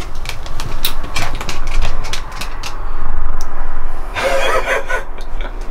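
Irregular clicking and knocking of objects being handled and moved inside an RV trailer, over a steady low hum.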